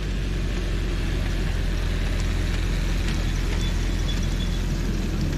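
7¼-inch-gauge miniature train passing close by: a Union Pacific diesel-outline locomotive and its ride-on passenger cars rolling over the track with a steady low rumble.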